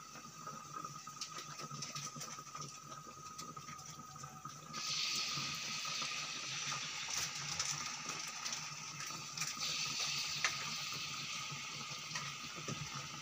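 Battered banana fritter deep-frying in hot oil in a wok: a steady sizzle with scattered crackles, which grows louder about five seconds in.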